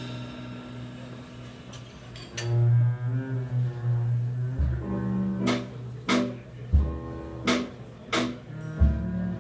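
A small live jazz combo playing. An upright double bass holds long low notes under guitar and keyboard chords. From about five seconds in, sharp cymbal strokes come in, roughly one every two-thirds of a second.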